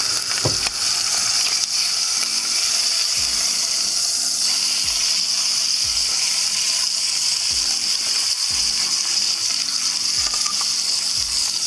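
Cornish game hen searing in hot ghee in an enamelled cast-iron Dutch oven, a steady sizzle throughout. A few soft low knocks come now and then as metal tongs turn the hen in the pot.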